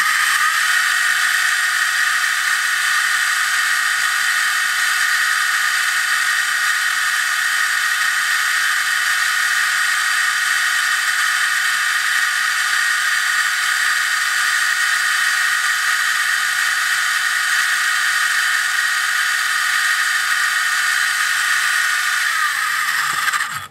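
ORCA Blitreme 3 brushless RC motor running at full throttle, about 22,000 rpm, spinning a load motor through a 31-tooth pinion and spur gear: a loud, steady high-pitched whine of motor and gear mesh. Near the end it winds down, the pitch falling as it coasts to a stop.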